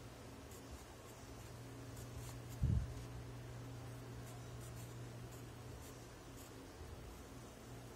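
Pencil writing on paper: faint short scratches and taps of the graphite strokes over a steady low hum. A single dull low thump about two and a half seconds in.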